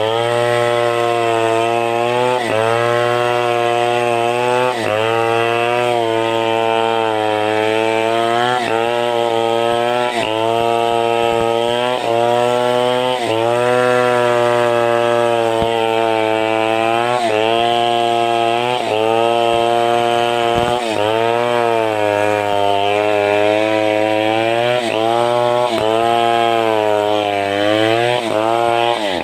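Chainsaw milling a sengon log into beams, the engine running hard under load. Its pitch sags and picks back up every second and a half to two seconds as the bar is worked through the wood.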